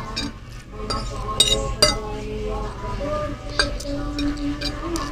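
Eating utensils clinking against a dish, with three sharp clinks spread over the stretch.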